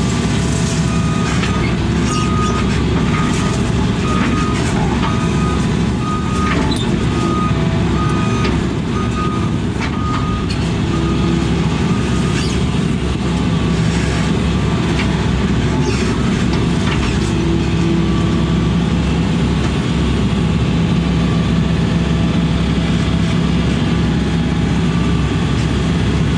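Heavy diesel machine running steadily while its reversing alarm beeps over and over, stopping for a few seconds in the middle and starting again.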